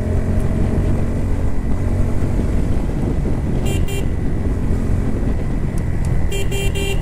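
Bajaj Pulsar NS160's single-cylinder engine running steadily under way. A horn beeps twice about halfway through and three times in quick succession near the end.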